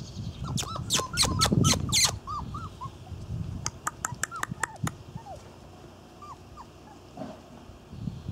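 Irish Terrier puppy whimpering in short, high squeaks: a quick run of them in the first three seconds, then a few scattered ones. Sharp clicks come in among them, thickest in the first two seconds.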